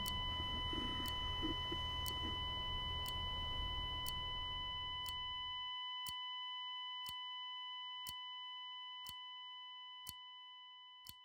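Hospital heart monitor sounding a continuous flatline tone, the signal that the patient's heart has stopped, fading out near the end. Faint ticks come about once a second throughout.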